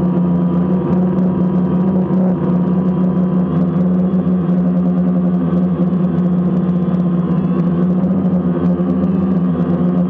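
DJI Phantom quadcopter's motors and propellers humming steadily in flight, picked up by the camera mounted on the drone itself.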